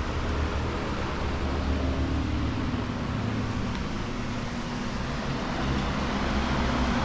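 Steady mechanical hum with a broad hiss, from a running machine such as an air-conditioning unit or an idling engine.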